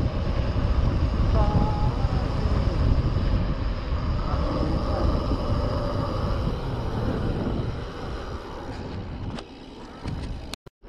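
Wind rumbling on the camera microphone, mixed with tyre noise from a mountain bike rolling fast down a paved road. The rumble eases about eight seconds in, with a few sharp clicks and a brief cut-out near the end.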